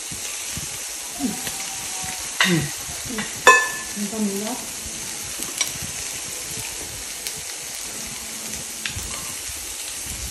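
Food sizzling steadily in a frying pan on a portable gas stove, with metal tongs clicking against the pan a couple of times, loudest about three and a half seconds in.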